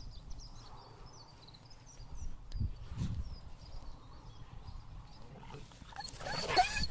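Dogs moving about on grass with a few soft thuds, then near the end a dog's short, high-pitched whining yelp during a dominance stand-off between pack members.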